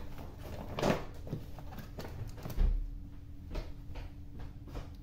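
Cardboard box of dates being handled and opened on a kitchen worktop: a few short scraping rustles, the loudest about a second in, and a dull low thump about two and a half seconds in.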